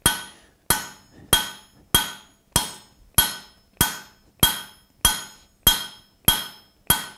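Hand hammer striking a red-hot 3/4-inch mild steel bar laid over a kiss-block step tool on an anvil, drawing out a tong jaw. The blows come in a steady rhythm, about twelve of them, one every 0.6 seconds or so, each with a short metallic ring.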